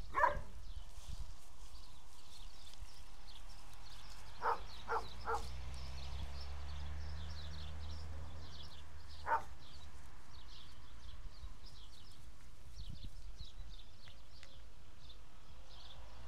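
Dog barking in short single barks, five in all: one at the start, three quick ones about four and a half seconds in, and one more about halfway through. These are alarm barks at a stork.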